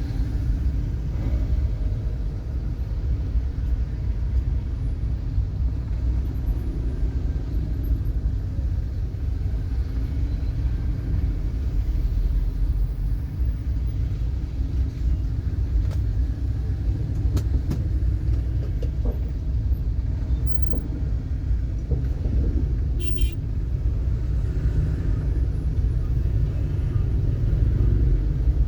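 Steady low rumble of a road vehicle driving in traffic, with a brief high-pitched chirp about two-thirds of the way through.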